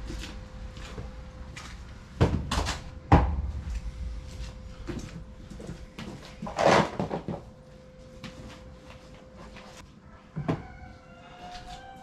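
A series of knocks and bangs, the loudest a few seconds in and near the middle, over a faint steady hum.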